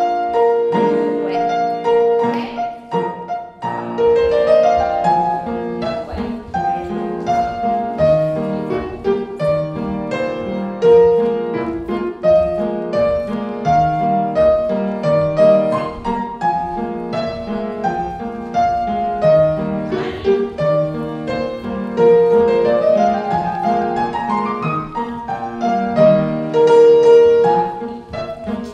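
Classical piano music, an even stream of notes with a quick rising run about four seconds in and another about twenty-two seconds in.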